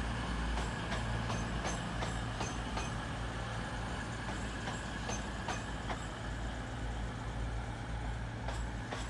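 CrossCountry Voyager diesel multiple unit moving slowly out of the platform, its underfloor diesel engines running with a steady low drone. Regular sharp clicks, about two a second, ride over it and thin out after about six seconds.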